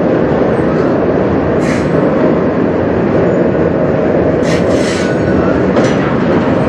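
Freight train's autorack cars rolling past close by: a loud, steady rumble of steel wheels on rails, with a few brief higher-pitched hissing sounds from the running gear.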